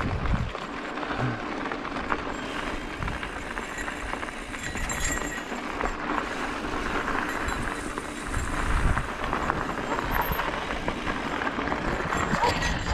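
Mountain bike riding on a dirt singletrack: tyres crunching over the trail, with the bike and its gear rattling and clicking steadily over the bumps. Now and then a low rumble comes in, around the start and again about two-thirds of the way through.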